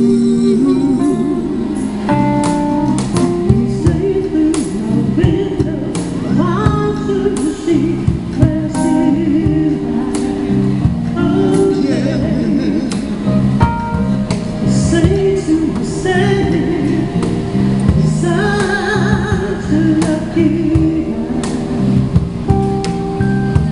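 Live band playing soul music: singing over electric keyboard and guitar, with a steady beat.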